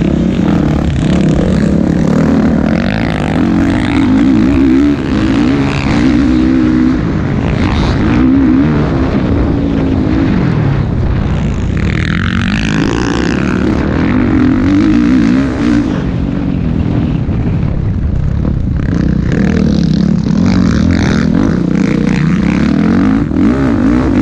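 Motocross dirt bike engine at race pace, heard close up from on board, its revs rising and falling through the corners and straights. There is a clear drop in revs about ten seconds in before it pulls hard again.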